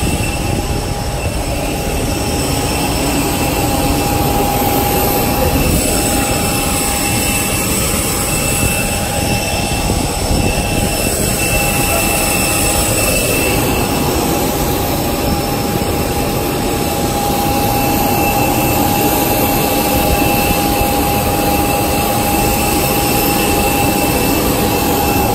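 Airbus airliner's jet engines running: a loud, steady rush of noise with a high whine held at a constant pitch.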